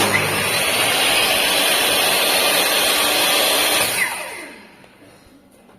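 Table saw's electric motor and blade switched on at full speed, running steadily, then switched off about four seconds in and winding down with a falling whine.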